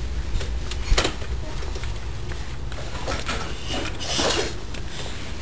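A toddler's hands tapping and rubbing on a glass sliding door. A sharp knock comes about a second in, followed by a few lighter taps and a short rub near four seconds.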